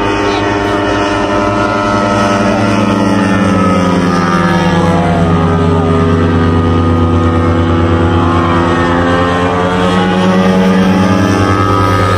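Engine and propeller of a 5.3 m, 130 kg scale Jungmeister aerobatic biplane model droning in flight, the pitch sinking over the first few seconds and rising again near the end.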